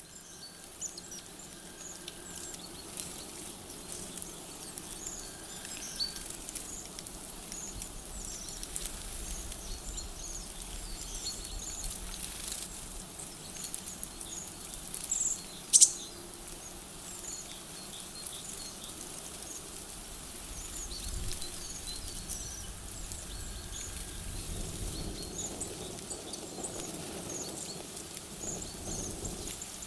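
Small birds giving many short, high chirps over a steady hiss, with one sharp loud click about halfway through.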